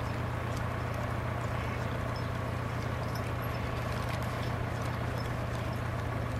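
Pair of draft horses working in harness through snow: hooves plodding and harness clinking now and then, over a steady low hum.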